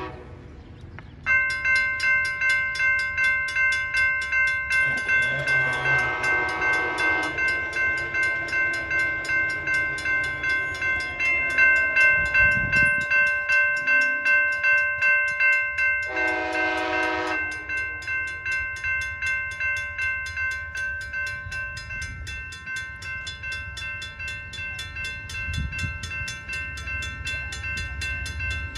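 A railroad grade-crossing bell starts ringing about a second in and keeps ringing with evenly repeated strokes. A train horn sounds twice over it: a long blast about five seconds in and a shorter one about halfway through.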